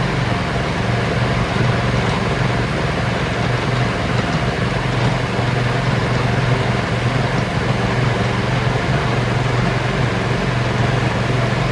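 Engine of a choke-started farm vehicle running steadily while it is driven, with an even low hum.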